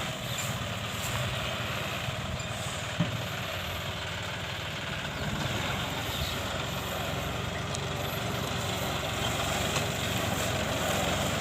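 John Deere 5050D tractor's diesel engine running steadily.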